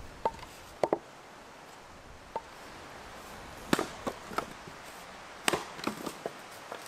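Axe splitting firewood logs on a chopping block: a series of sharp, separate wooden knocks, the loudest about four and five and a half seconds in.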